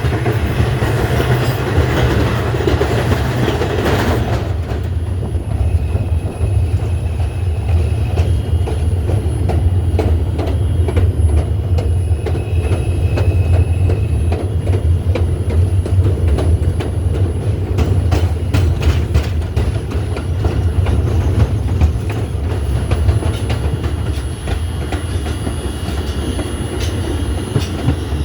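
R142 subway train running along the track: a steady low rumble with the clickety-clack of wheels over rail joints. A harsher rushing noise over the top drops away about four seconds in.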